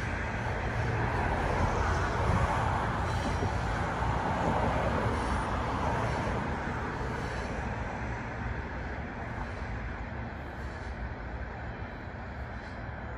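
Coal hopper wagons of a freight train rolling along the rails, a steady rumble and wheel noise that fades through the second half as the end of the train moves away.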